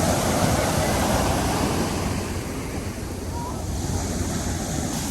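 Ocean surf rushing and washing in, with wind rumbling on the microphone. The rush is fuller in the first couple of seconds and eases a little after that.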